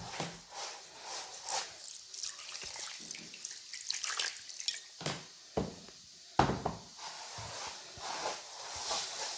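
Water poured onto dry rolled couscous grains in a bowl and worked in by hand: uneven trickles and drips, with the gritty rustle of damp semolina being rubbed between the fingers.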